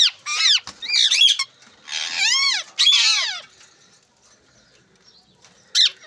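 Caged green parakeets squawking: a quick run of harsh, arching calls for about three and a half seconds, then a pause, and one more call near the end.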